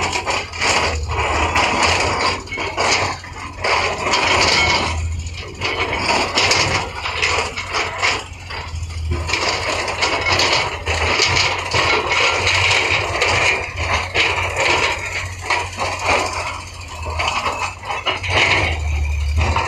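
Heavy earthmoving machinery at work: irregular scraping, knocking and rattling of steel on rock and earth over a low, steady engine rumble.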